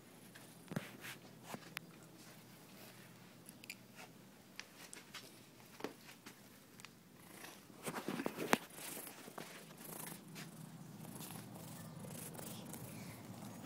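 Domestic cat purring close to the microphone, the low steady purr growing stronger in the second half. Scattered clicks and rustles from the cat moving against the phone run through it, with a louder burst of rustling about eight seconds in.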